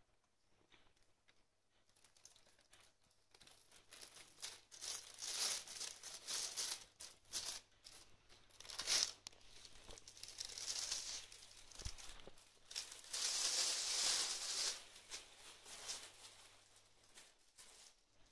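Thin plastic bag crinkling in irregular bursts as a cat moves and licks inside it, faint for the first few seconds and dying down near the end.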